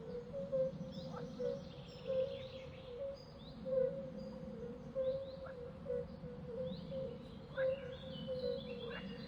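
Outdoor ambience with birds giving short, scattered chirps over a steady low hum and a constant pulsing tone.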